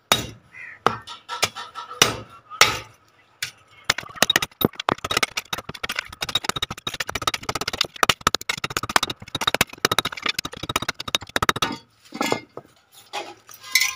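Hammer blows cutting through the old steel spokes of a 70cc motorcycle wheel against an iron block: a few separate metallic strikes, then about eight seconds of rapid metallic clatter and ringing, then a few more strikes near the end.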